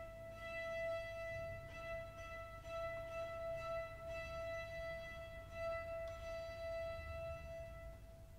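Quiet orchestral music: a single high note held steadily for about eight seconds, with faint low sounds beneath it.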